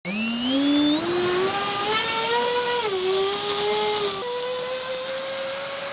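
A 64 mm electric ducted fan whining at high speed. The pitch climbs as the throttle opens, sags briefly, then jumps to a steady higher whine about four seconds in.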